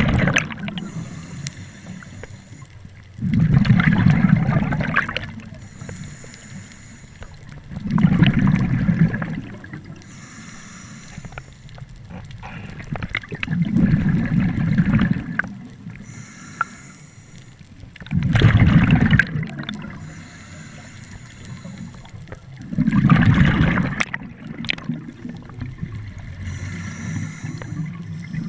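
Scuba diver breathing through an open-circuit regulator underwater: a loud burst of exhaled bubbles gurgling out about every five seconds, about six times, with a faint hiss between them.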